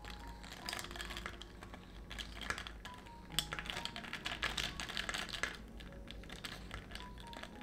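Ice cubes clinking and rattling against a tall drinking glass as an iced milk drink is stirred with a straw: a fast, uneven run of small clicks, busiest around the middle.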